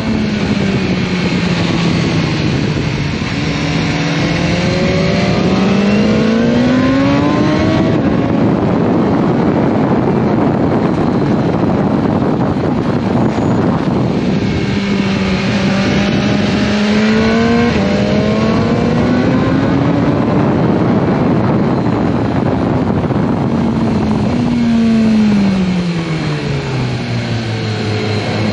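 BMW S1000R's inline-four engine heard from on board at speed, with a steady wind rush. The note climbs under acceleration, jumps at gear changes and falls off as it slows for corners, dropping in several steps near the end.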